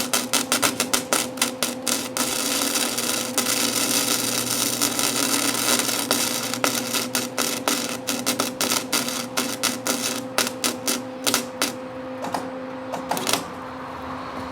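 Old Lincoln flux-core wire welder laying a bead, its arc crackling and popping irregularly over a steady hum, then stopping about a second before the end. The sputtering goes with welds the welder calls pathetic, a big old fail.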